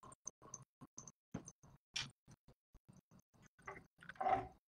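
Glitching, dropped-out stream audio: a stutter of short clicks and chopped-up fragments, broken by gaps of dead silence, with a slightly longer, louder burst about four seconds in.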